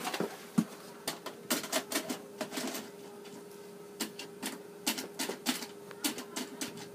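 Irregular clicks and knocks as a videotape is handled and loaded into a VCR and its buttons are pressed, over a faint steady hum.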